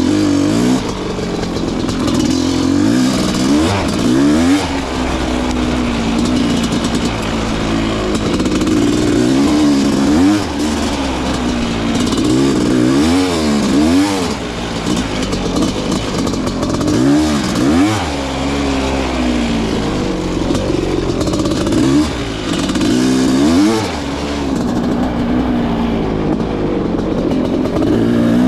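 Honda CR500's single-cylinder two-stroke engine under way, revving up and down as the throttle is worked. Its pitch rises and falls many times, with sharp drops and climbs through gear changes.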